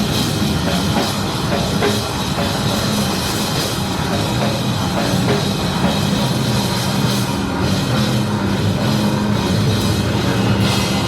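Live rock band playing loud and without a break: drum kit with crashing cymbals over heavy bass and guitar.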